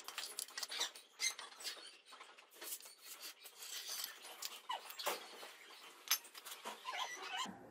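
Hand scriber scratching a line into a steel plate along a metal straightedge: a run of short rasping strokes with brief high squeaks.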